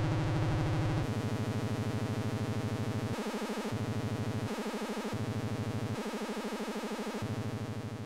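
Behringer UB-Xa analog polyphonic synthesizer playing a sustained preset sound with a fast, regular wobble; the low notes change about a second in and then drop out and come back several times.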